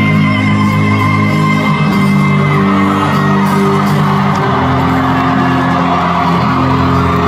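Live acoustic band holding sustained guitar chords in a large arena, with the chord changing about halfway through. The crowd whoops and cheers over it, and the cheering swells in the second half.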